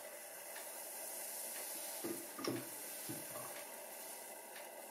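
Waffle batter sizzling on the hot plates of an electric heart-waffle iron, a steady hiss. A few soft knocks of the ladle against the iron come about two to three seconds in.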